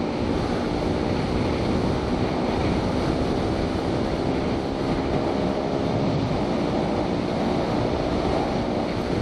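Sport motorcycle cruising at steady speed on the open road: an even engine drone under a constant rush of wind on the helmet microphone.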